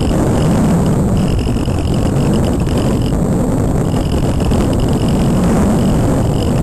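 Wind rushing over the onboard camera of a Multiplex Cularis model glider in flight: a steady, loud low rumble of airflow, with a thin high whine that comes and goes.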